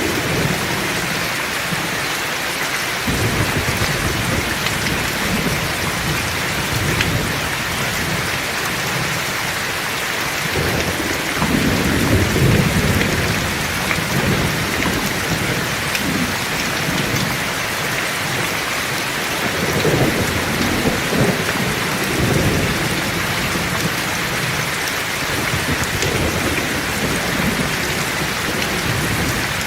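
Heavy rain falling steadily, with low rolling thunder rumbling several times, strongest about twelve and twenty seconds in.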